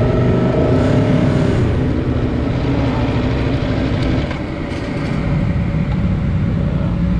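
Aprilia Tuono V4 Factory's V4 engine running at a fairly steady pace, heard onboard with wind rush over it. The note eases briefly about four and a half seconds in, then holds steady.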